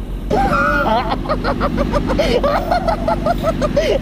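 A person laughing in a quick string of short pitched 'ha' sounds, starting just after the beginning, over the steady low running of motorcycle engines at idle.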